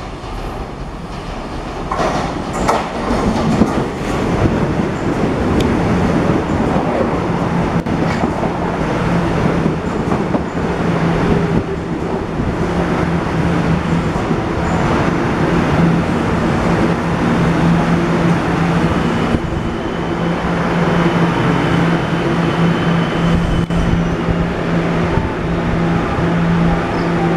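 Taiwan Railways EMU700 electric multiple unit moving along the station platform, its wheels rumbling and clattering louder over the first few seconds. A steady low hum sets in about halfway through, and a thin high whine comes for a few seconds near two-thirds of the way.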